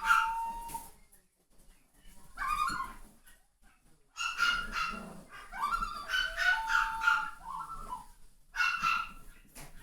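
Puppies yipping and whining in several high-pitched bouts, the longest running for about four seconds in the middle.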